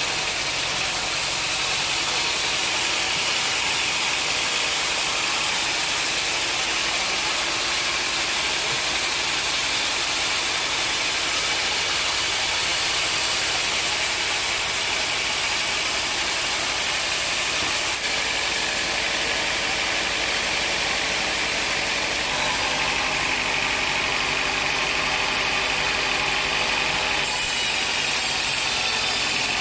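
Sawmill machinery running steadily: a continuous mechanical drone with a strong high hiss, the sound dipping briefly about two-thirds of the way in.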